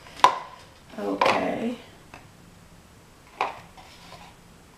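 Two short, sharp clicks as tarot cards are handled and set down on a table, one just after the start (the loudest sound) and another about three and a half seconds in, with faint handling ticks between.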